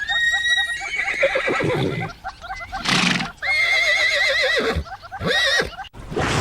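Horse whinnying three times, each a high call with a shaking, quavering pitch that drops away at the end. There is a short breathy snort about three seconds in.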